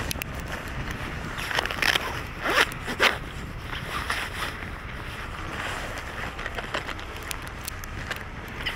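Wind buffeting the microphone in a snowstorm: a steady low rumble of noise. Between about one and a half and three seconds in there is a cluster of sharp crackling, crunching sounds.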